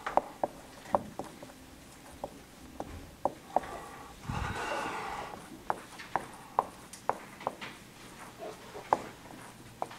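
Dry-erase marker tapping and clicking against a whiteboard as words are written, a run of sharp, irregular clicks. A longer rustling sound comes about four seconds in.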